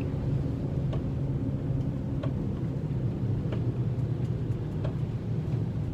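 A bad wheel bearing on a moving car, heard from inside as a steady, very noisy low drone blended with road noise. It is the sign of a worn wheel bearing.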